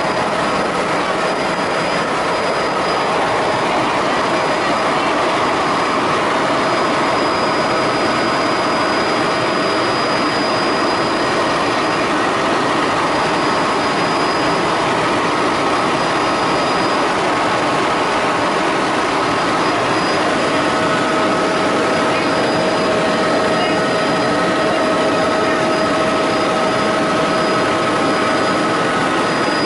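Helicopter in flight heard from inside the cabin: a loud, steady rush of engine and rotor noise with a few faint, steady whining tones over it.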